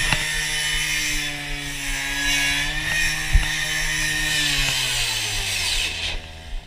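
An engine running steadily at high speed under a loud hiss. About four and a half seconds in it winds down, its pitch falling, and the hiss cuts out near the end.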